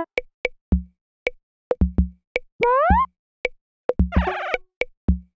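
Playful cartoon music: a sparse beat of low drum thumps and sharp clicks, with two short sliding tones that rise and fall, and a quick banjo strum about four seconds in.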